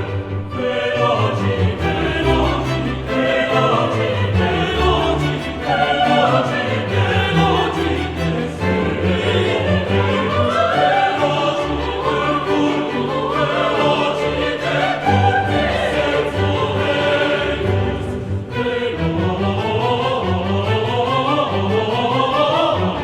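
Classical choral and orchestral music with operatic singing and strings.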